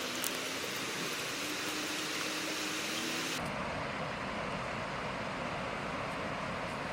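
Steady rushing noise, bright and hissy at first, changing abruptly about halfway through to a duller, lower rush.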